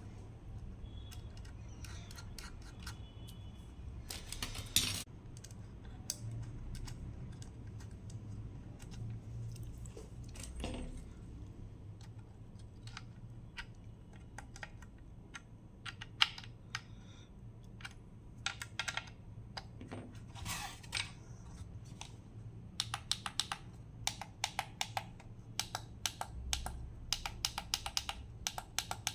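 Tactile push buttons being pressed and tested, giving sharp ticking clicks. The clicks are scattered at first among handling knocks, then come in a quick run through the last six seconds or so, over a steady low hum.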